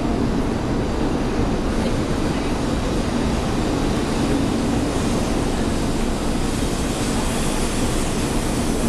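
E2-series Shinkansen bullet train gliding past alongside the platform as it slows into the station: a steady rushing of wheels and air with a low hum, and no horn or clatter.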